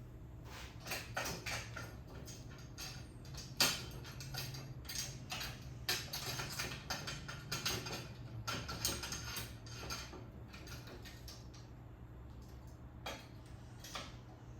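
Metal parts of a miter saw stand being handled and fitted: an irregular run of clicks, knocks and rattles, with one sharp knock about three and a half seconds in, thinning out near the end.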